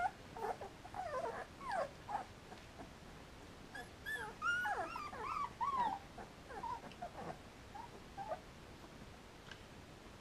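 Three-week-old Samoyed puppies whimpering and squeaking in short, high, wavering cries while they nurse. The cries are busiest about four to six seconds in and die away after about eight seconds.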